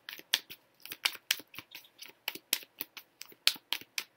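A quick, irregular run of sharp clicks and taps, about four or five a second, the loudest about three and a half seconds in.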